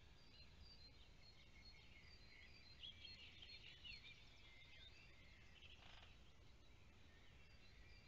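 Faint chorus of small songbirds, many quick overlapping chirps and twitters, over a low steady rumble.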